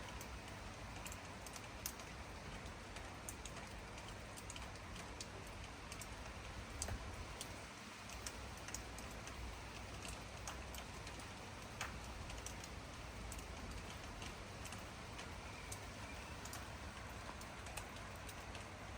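Rain falling as a steady hiss, with scattered sharp ticks of individual drops striking nearby surfaces at irregular moments.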